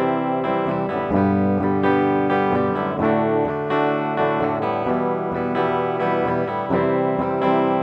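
Guitar recording playing back unedited: plucked notes and chords ringing one into the next. The track was recorded at a low volume and then amplified, which raises its background noise along with the guitar.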